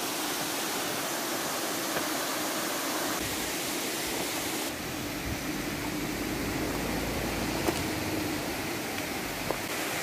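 Steady rushing of a waterfall and stream, with a few light clicks.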